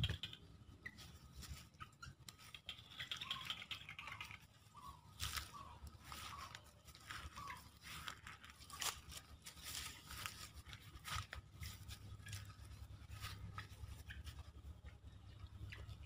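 Faint rustling and crackling of grass and dry leaves being moved through, with scattered sharp clicks.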